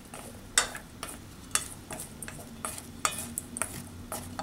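A wooden spatula stirring diced mango salsa in a stainless steel bowl: irregular clicks and scrapes of wood against metal, about two or three a second.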